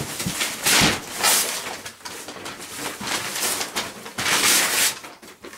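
Shipping paper being torn and pulled off a cardboard box, in several rough, noisy bursts of ripping and crinkling.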